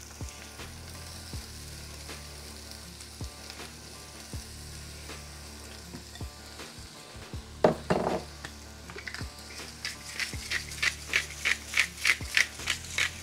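Chopped vegetables sizzling in olive oil in a frying pan, with a clatter of the pan or utensil about seven and a half seconds in. In the last few seconds a utensil stirs and scrapes through them in quick even strokes, about three a second.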